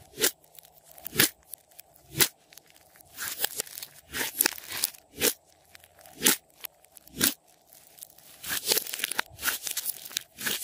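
Glossy slime being kneaded, pressed and stretched by hand, giving sharp popping clicks about once a second with softer crackling and squelching between them.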